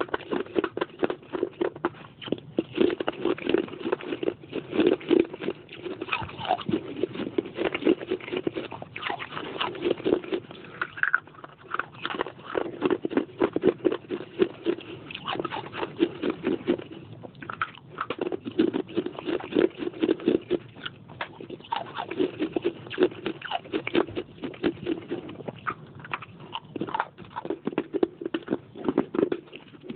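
Pieces of baked clay pot being bitten and chewed: a dense, continuous run of crunches and crackles, broken by a few short pauses.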